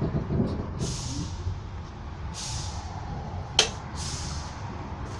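Children's railway train running, heard from inside the carriage: a steady low rumble, three short hissing bursts and a single sharp clack about three and a half seconds in.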